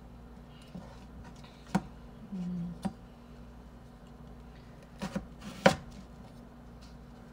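Kitchen knife slicing a raw potato into wedges on a plastic cutting board: a few sharp knocks as the blade hits the board, one or two about two seconds in and a quick cluster of three past the five-second mark, the last the loudest. A brief low hum sounds between the first knocks.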